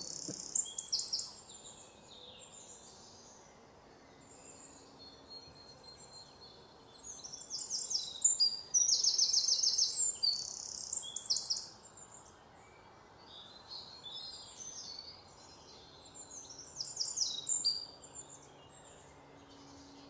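Small birds chirping in fast, high-pitched trills and twitters, in bursts with gaps between; the longest and loudest run of chirps comes from about seven to twelve seconds in.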